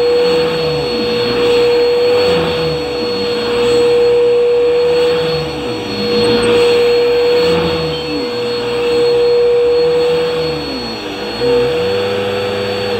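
Upright bagless vacuum cleaner running, a steady high whine over a lower hum that rises and falls in pitch about every two seconds. Near the end there is a brief louder bump, and the hum then settles at a new steady pitch.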